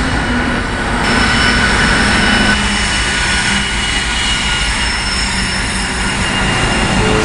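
A train passing, with a loud steady rumble of wheels on rails and a steady high-pitched wheel squeal running over it.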